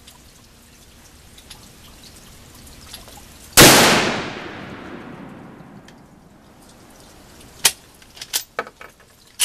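A single loud shot from a Winchester Model 70 bolt-action rifle in .223 Winchester Super Short Magnum, a little past a third of the way in, its report echoing away over about two seconds. A few short sharp clicks and taps follow near the end.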